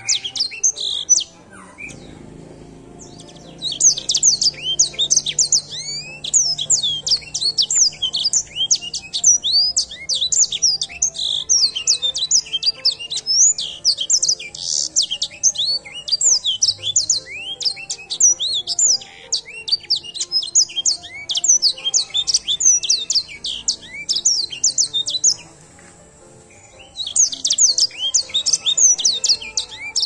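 Edel Sanger canary singing a long, fast song of rapid sweeping chirps and rolling trills. It breaks off briefly about a second in and again a few seconds before the end.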